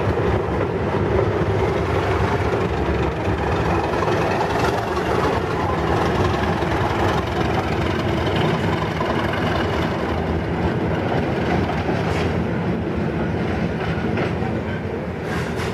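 A heritage diesel-hauled passenger train moving out past the platform: the coach wheels clatter over the rail joints, and a diesel locomotive's engine runs underneath.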